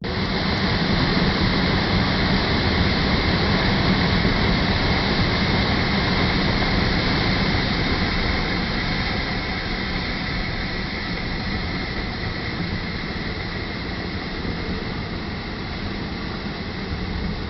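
Waterfall pouring down, a steady loud rush of water that eases slightly in level over the second half.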